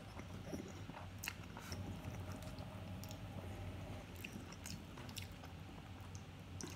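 A person chewing a mouthful of chicken nachos with soggy tortilla chips, with scattered small wet clicks and smacks of the mouth, over a low steady hum.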